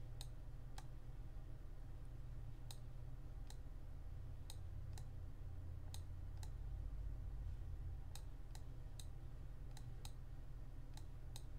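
Computer mouse clicking: a dozen or so sharp single clicks at irregular intervals, over a steady low hum.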